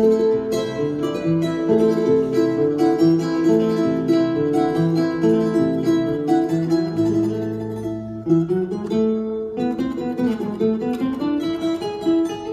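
A charango and a classical guitar playing an instrumental Andean piece together. The charango plays a quick, bright melody over the guitar's lower accompaniment and bass notes.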